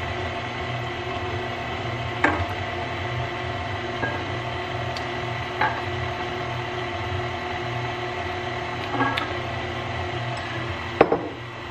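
KitchenAid Classic stand mixer running steadily, its motor humming as the flat beater mixes an egg into cookie dough in a stainless steel bowl, with a few light knocks along the way.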